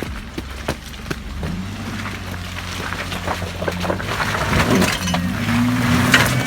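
Off-road SUV engine running under load and revving up as the vehicle crawls over rocks on the trail, with scattered sharp knocks and cracks throughout.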